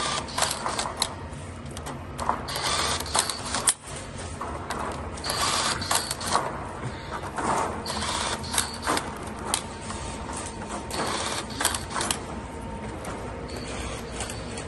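SurSpider cordless rebar tying tool tying one rebar crossing after another. Each tie is a short burst of motor whir and mechanical clicking as the tool wraps, twists and cuts the wire, repeating about every three seconds.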